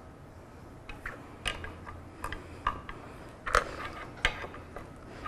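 Irregular sharp metallic clicks and knocks, about ten over a few seconds, from the joint mechanism of a vintage KUKA industrial robot arm as it is worked around by hand.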